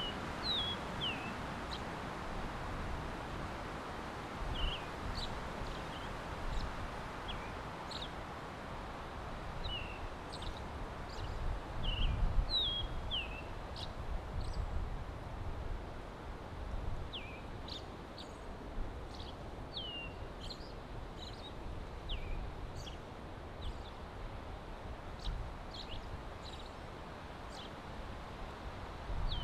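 Small birds giving short, high, downward-slurred chirps every second or so, over a steady hiss of wind through the trees. The wind rumbles louder briefly about twelve seconds in.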